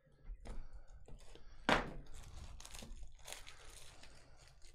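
Clear plastic wrap crinkling and tearing as it is handled, in a run of crackles, the loudest a little under two seconds in.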